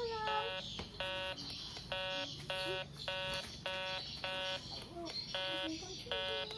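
MD 9020C metal detector's buzzer beeping: short, buzzy, evenly pitched beeps repeating about once a second. The detector is switched on with its batteries low.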